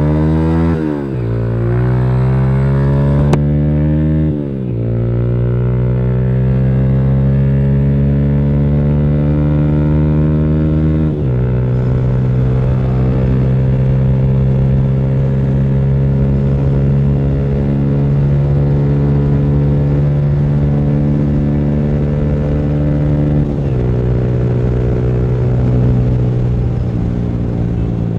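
Yamaha YBR125G motorcycle's single-cylinder four-stroke engine and exhaust accelerating up through the gears: the pitch climbs, drops sharply at each of four upshifts, and holds in a long steady pull in the middle before rising again near the end.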